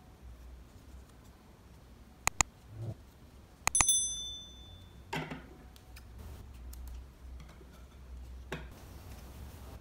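Subscribe-button animation sound effect: two quick mouse clicks about two seconds in, then another click and a short, high bell ding just under four seconds in. Paper being folded rustles faintly afterwards.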